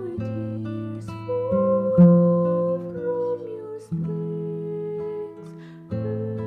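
A girl singing into a studio microphone over instrumental backing, with chords changing every second or two.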